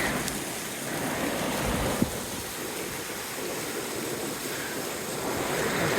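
Waterfall and mountain stream water rushing steadily, with a single short knock about two seconds in.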